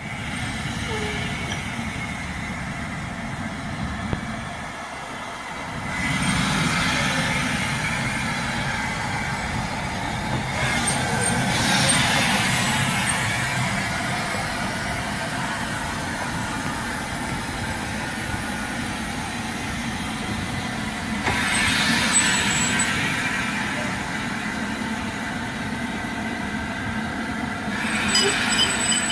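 LMS Black 5 two-cylinder 4-6-0 steam locomotive moving slowly past at close range, giving a steady low rumble and hiss. Louder swells of steam hissing come about six, eleven, twenty-one and twenty-eight seconds in.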